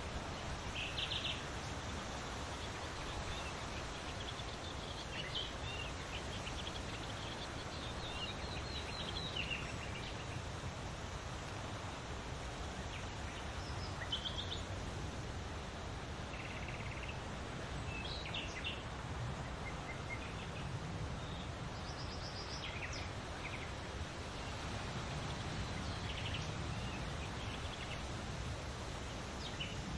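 Birds singing in short, scattered chirps and trills over a steady rustle of leaves in the wind.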